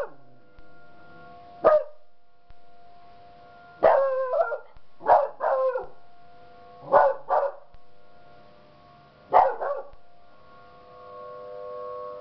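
Beagles baying in five short bouts, over the steady multi-tone wail of an outdoor tornado warning siren sounding its weekly test.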